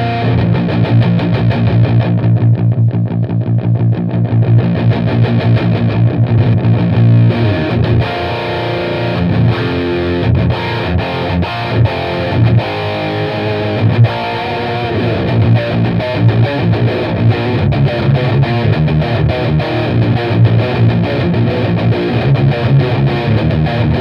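Electric guitar with a Seymour Duncan Invader bridge humbucker, played through a Bugera 333 Infinium valve amp with EL34 valves into a 12-inch Celestion Hot 100 speaker in a Marshall cab. It is playing heavily distorted, saturated riffs continuously.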